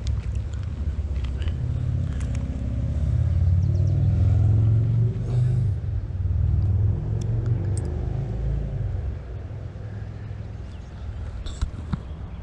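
Low rumble of a motor vehicle, swelling to its loudest a few seconds in and then fading away.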